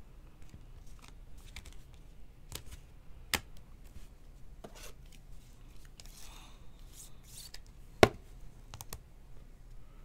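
A trading card being handled and slid into a rigid clear plastic card holder: scattered light plastic clicks and a sliding rustle, with one sharp tap about eight seconds in.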